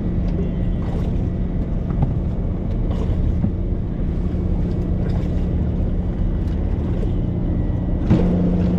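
Steady low hum of a Hangkai 12 hp outboard motor idling, with a few light knocks and a louder bump about eight seconds in.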